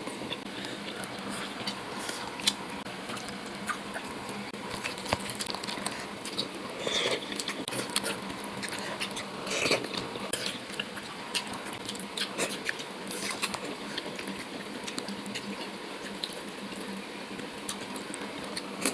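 A scatter of small clicks and taps over a steady hiss, with no voice.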